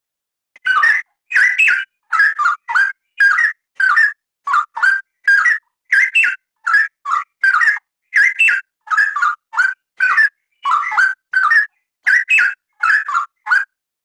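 Straw-headed bulbul (cucak rawa) singing a dense, unbroken run of loud, rich song phrases, about two a second with short silent gaps. It starts just under a second in and stops just before the end.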